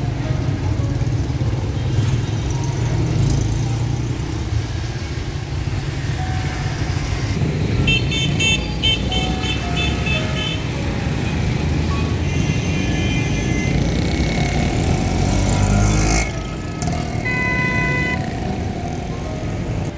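Street traffic: motorcycle and auto-rickshaw engines running close by in a continuous low rumble, with short horn toots at a few points.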